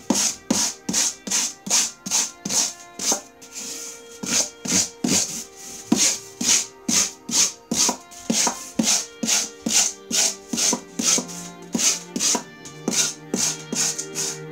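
Rhythmic scraping strokes of a hand tool worked across a sheet of EPS foam board, about two strokes a second, over background music.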